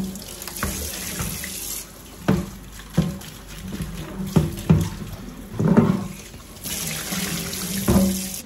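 Kitchen tap running into a sink as a plastic cutlery tray is rinsed under it, with about six hollow knocks as the tray is handled against the sink. The hiss of the water is strongest in the first two seconds and again near the end.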